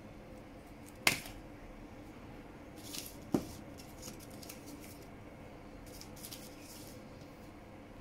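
Foil tea sachets crinkling as a hand handles them and sets them down on a tabletop, with two sharp taps, about a second in and about three and a half seconds in.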